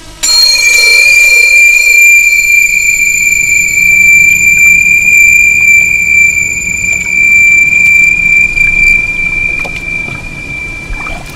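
A loud, high-pitched squeal that starts abruptly and holds one steady pitch. Its shrillest overtones drop away near the end, leaving the tone weaker.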